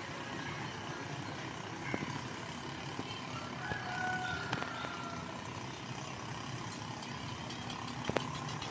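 Distant traffic on a flooded road: motorcycle and truck engines running over a steady background hiss, with a faint tone for about a second around four seconds in.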